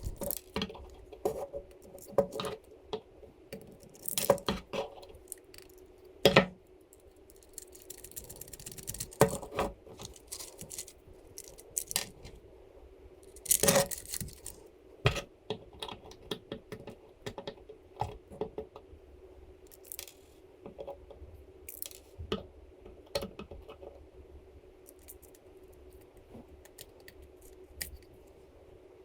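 3D-printed plastic engine parts and small metal screws, nuts and washers clicking and clattering as they are handled and fitted together by hand, in irregular bursts, with a faint steady hum underneath.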